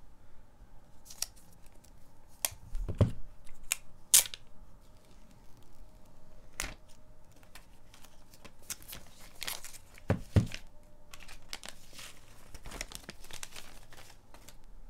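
Clear plastic packaging sleeve being pulled off a new iPhone 12 box and handled: stiff plastic crinkling and crackling in irregular snaps, the loudest about three and four seconds in, with a busy run of crinkles in the second half.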